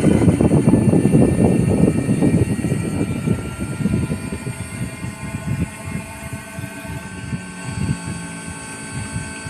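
Outdoor fan of a 4-ton split air conditioner running, giving a loud fluttering rush of moving air that fades over the first few seconds. It settles into a steady mechanical hum, with a faint whine slowly rising in pitch.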